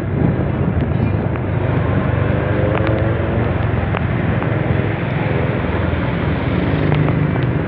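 Honda XRM 125 FI motorcycle's single-cylinder four-stroke engine running at a steady cruise, mixed with constant wind and road noise on the on-board microphone.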